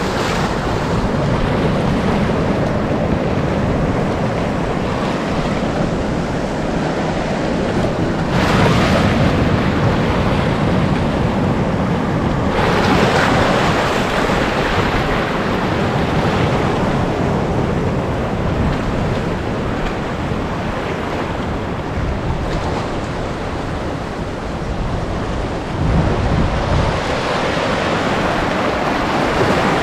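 Sea surf breaking and washing up the beach, a steady rushing noise that swells louder twice in the first half. Wind buffets the microphone with a low rumble a little before the end.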